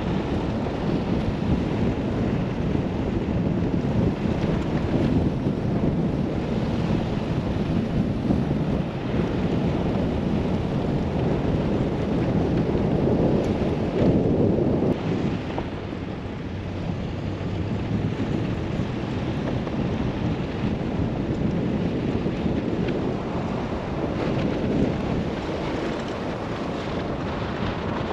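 Wind buffeting the microphone of an outside-mounted camera, over the steady rumble of a vehicle's tyres on a gravel road.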